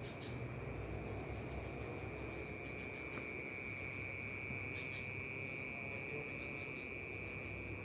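Night insects in the forest: a steady high-pitched trill, with a second insect chirping in quick repeated pulses above it.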